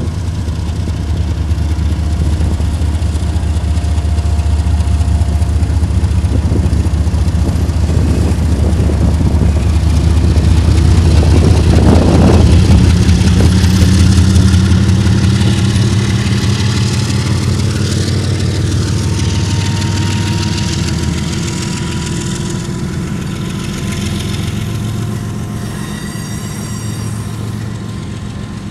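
Diesel freight locomotives passing, a Union Pacific unit leading and a new EMD SD70ACe-T4 behind it, their engines' deep rumble building to its loudest about twelve seconds in and then easing off as hopper cars roll by.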